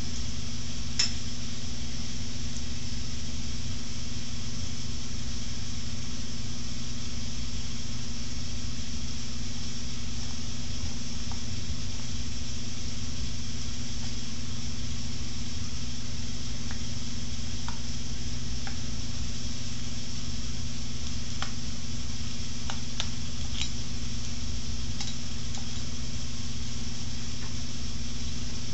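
Steady low hum and hiss from the workshop, with a few faint light clicks of metal as a screwdriver works the set screw in the lathe headstock's pulley.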